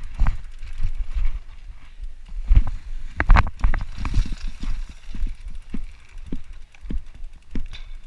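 Bicycle jolting over a bumpy trail: irregular low thumps and rattling knocks, with a louder cluster of clatters about two and a half to three and a half seconds in.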